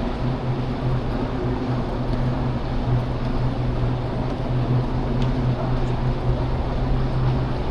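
A steady low mechanical hum holding one pitch, over a constant background rush.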